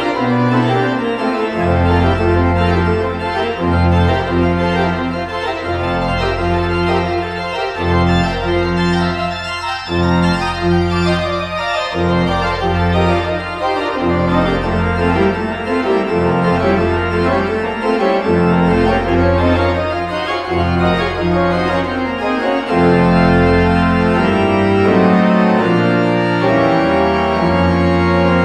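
Noehren pipe organ playing a piece with full, sustained chords over deep pedal bass notes that change every couple of seconds. The sound grows louder about two-thirds of the way through.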